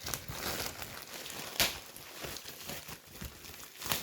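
Packaging of a paint-by-number kit being handled and opened by hand: irregular crinkling and rustling, with one sharper crackle about one and a half seconds in.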